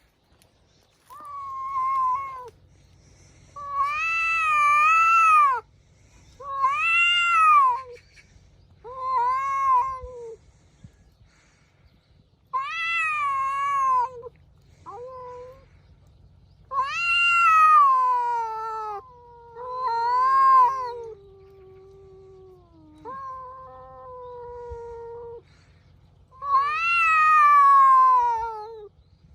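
Two cats yowling at each other in a territorial standoff: a series of long, wavering, drawn-out caterwauls, about a dozen in turn with short pauses between them, one of them a long call that slowly falls in pitch midway through.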